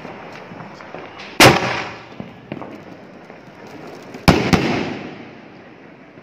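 Sony Vinayaga Dual Huggy Muggy sky shot firework going off: two loud bangs about three seconds apart, each trailing off over about half a second, with a smaller crack right after the second.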